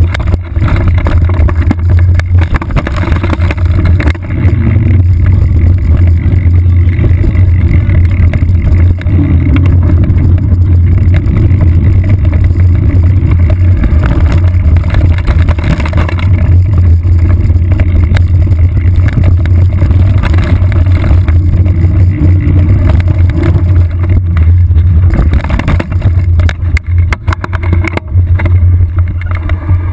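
Steady low rumble and rattle of a mountain bike riding over a rough dirt trail, heard through a saddle-mounted GoPro's waterproof housing, with a few sharper knocks near the end.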